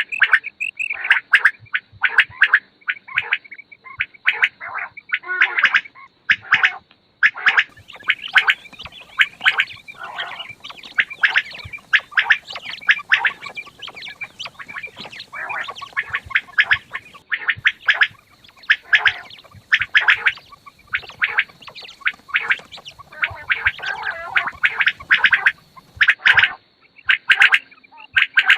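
Quails calling: a dense, unbroken run of short, sharp, rapidly repeated calls.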